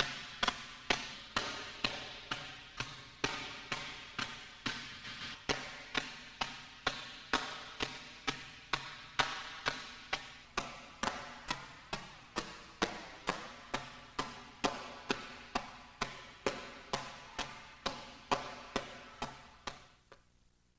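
Open palms slapping a cloth iron-palm training bag resting on a cinder block, in an even rhythm of about two strikes a second that fades out near the end.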